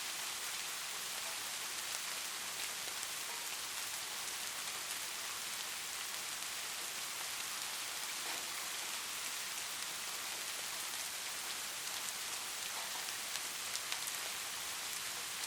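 Steady rain falling, a dense even hiss with scattered sharper drop ticks and no thunder.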